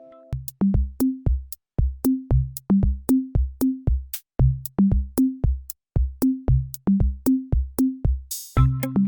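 Background music: an electronic beat with kick drum, sharp percussion hits and short bass notes, and a brief swooshing sweep near the end.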